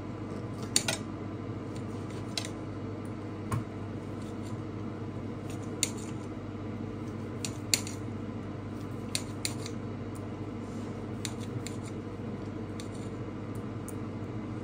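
Kitchen knife slicing grilled chicken breast on a plate, the blade striking the plate in about ten sharp, scattered clicks over a steady background hum.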